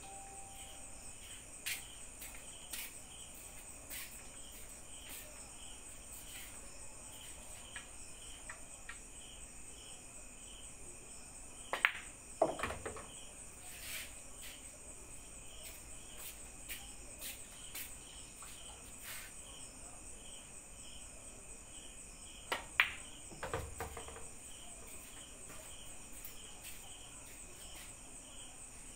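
Crickets chirping steadily throughout. Twice, about twelve seconds in and again near twenty-three seconds, a pool cue strikes the cue ball with a sharp click, followed by the clack of ball on ball and a low thud as an object ball drops into a pocket.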